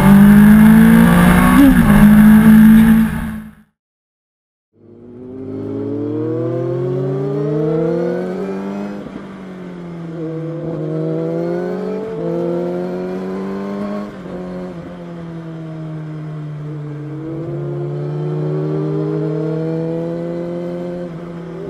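Sport motorcycles heard on board at speed. First a loud rush of wind over a steady engine note, which cuts off suddenly into about a second of silence; then a sport motorcycle's engine whose pitch climbs and falls again and again as it accelerates, shifts and eases off, over a lighter wind rush.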